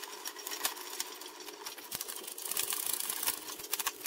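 A screwdriver tightening the terminal screw that clamps a neutral wire in a breaker panel's neutral bar: a fast, busy run of clicking and rattling, busiest in the second half.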